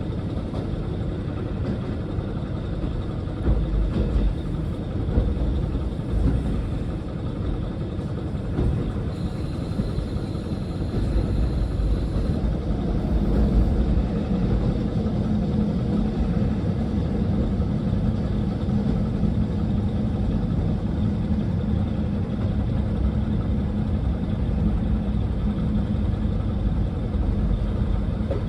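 Diesel railcar running, a steady low rumble from the engine and wheels on the rails. A faint high whine comes in for a few seconds about a third of the way through. The engine's drone grows stronger from about halfway on.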